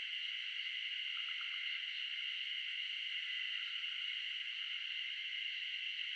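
A steady, dense insect chorus, a shrill hiss with no pause, with a few faint short chirps about a second in.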